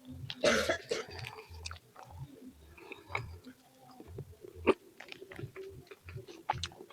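Close-up mouth sounds of someone chewing kue rangi, a dry grated-coconut and rice-flour cake with palm sugar: soft, irregular chewing with small wet clicks. There is a short loud burst of noise about half a second in and a sharp click about four and a half seconds in.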